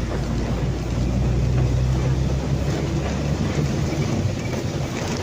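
An engine running steadily with a low hum, with a constant noisy wash over it.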